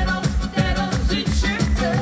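Live band music: a woman singing over an electric upright bass, with a steady percussive beat.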